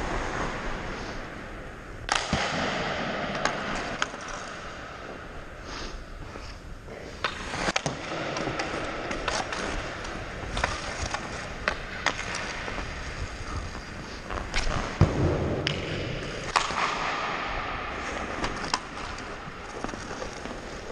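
Ice hockey skates carving and scraping on the ice in strides and sudden swells, broken by many sharp clacks of a stick on pucks and of pucks striking hard surfaces. A heavier thud comes about two-thirds of the way in.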